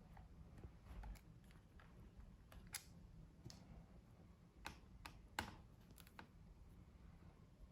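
Faint, irregular clicks and light taps from hands and small tools working on a laptop's plastic and metal parts during disassembly, with the sharpest click about two thirds of the way through.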